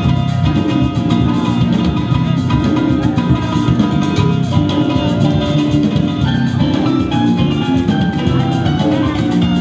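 Live band music: a Korg electronic keyboard played over drums and percussion.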